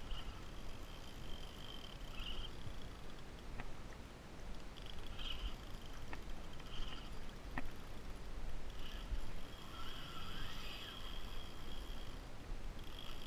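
Kayak out on the open sea: a low wind-and-water rumble, with short high squeaks every couple of seconds and a few sharp clicks.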